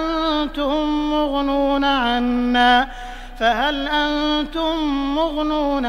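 A man reciting the Quran in Arabic, chanted melodically with long, drawn-out held notes that slide in pitch. He takes a short breath about halfway through.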